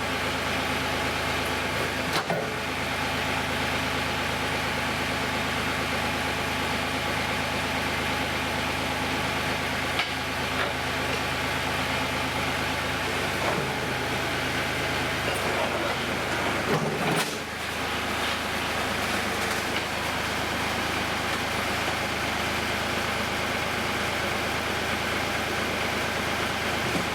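A heavy-equipment engine running steadily, with a brief change in its note about 17 seconds in and a few light knocks.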